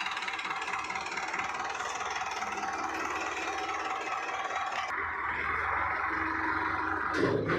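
Sonalika DI-750 III tractor's diesel engine running steadily. About five seconds in the sound turns deeper, with more low rumble, and it grows louder near the end.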